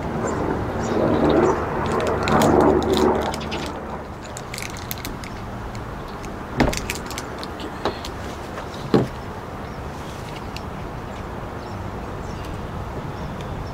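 Small metal hardware being handled while a roof bungee bracket is fitted: three sharp clicks spread over a few seconds, over steady background noise. A louder rush of noise swells and fades in the first few seconds.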